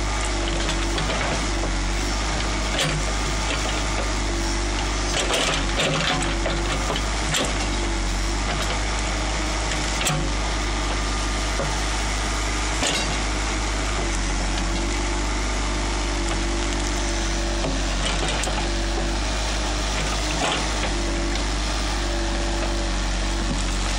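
JCB backhoe loader's diesel engine running steadily under digging load, with scattered sharp knocks and cracks as the backhoe bucket tears into tree stumps, roots and soil.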